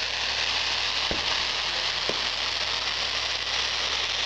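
Crackling fireworks: white crackle stars make a dense, steady crackle like frying. Two dull thumps from other shells come through, about one and two seconds in.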